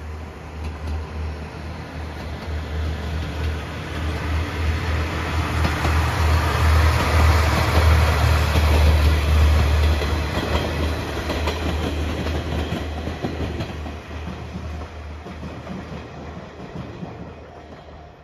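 Seto Ohashi Anpanman Torokko sightseeing train, a trolley car coupled to a diesel railcar, passing close by. A deep engine hum and the noise of the wheels on the rails swell as it approaches, are loudest about halfway through, then fade as it moves away.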